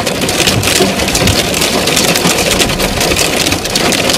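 Hail pelting a car's roof and windshield, heard from inside the cabin: a loud, dense clatter of countless small impacts over a steady rumble.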